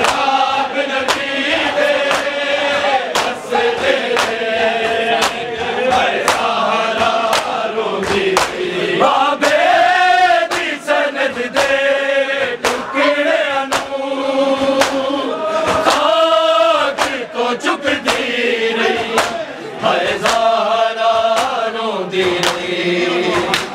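Men's chorus chanting a Punjabi noha (Shia lament) in long rising and falling lines, over a steady beat of chest-beating slaps (matam), a little under two a second.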